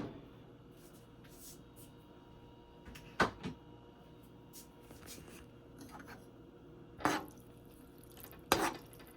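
Quiet kitchen handling sounds: a few short, sharp clicks and light knocks a few seconds apart over a faint steady hiss, as a tomato-paste tube and utensils are handled over a pan of simmering tomato sauce.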